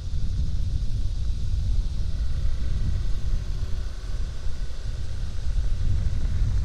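Steady low rumble of a motorcycle riding along a rough, potholed country lane: wind buffeting the microphone mixed with the engine and tyres.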